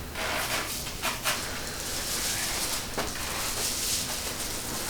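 Rustling and handling noises as a Y-strap decompression harness is fitted around a patient's head on a chiropractic table, with a few soft knocks and a sudden louder sound at the very end.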